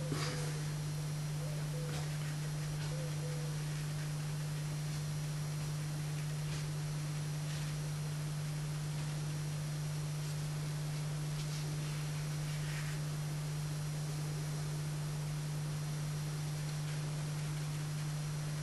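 Steady low electrical hum, with a few faint, soft, scattered taps of a paintbrush dabbing on watercolour paper.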